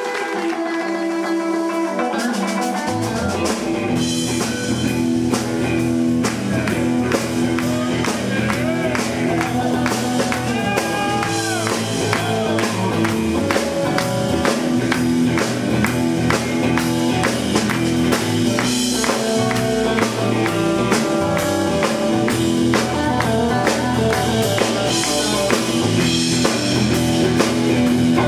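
Live instrumental blues-fusion shuffle played by a trio of electric guitar, bass guitar and drum kit. The bass comes in about three seconds in under a steady drum beat, and the electric guitar plays sustained notes with string bends.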